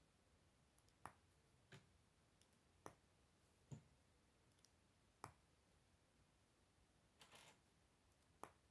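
Plastic K'nex rods snapping into a connector: about six sharp, separate clicks spread over several seconds, with a short rustle of pieces near the end.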